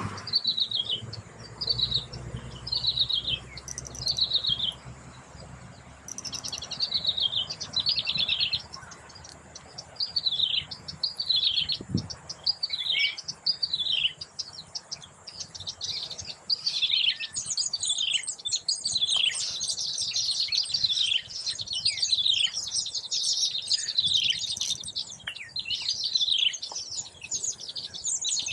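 Baya weavers chirping: a series of short, falling chirps, about one a second at first, crowding into an overlapping chatter from about halfway through as several birds call at once.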